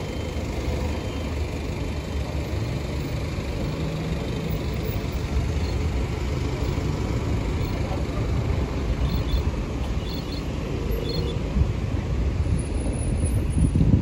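City street traffic: car engines and tyre noise from vehicles driving through an intersection, a steady rumble that swells slightly near the end.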